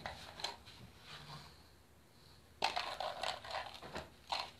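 Scraping and rustling of a small object being worked in the hands, a quick run of scratchy sounds starting a little past halfway through and lasting about two seconds.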